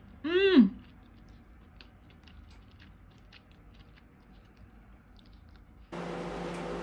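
A woman's short exclamation, falling in pitch, about half a second in, as she tastes the food. Then faint clicks of wooden chopsticks on a ceramic plate and quiet chewing. Near the end a steady low hum comes up.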